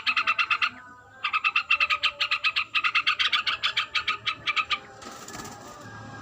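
Yellow-vented bulbul (trucukan) in breeding condition giving a rapid chattering call of about ten notes a second, in three runs with short breaks, that stops about five seconds in.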